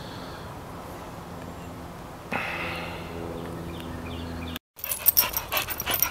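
A steady low hum with rustling of leafy branches, then after an abrupt cut a dog panting and snuffling close to the microphone, with sharp clicks.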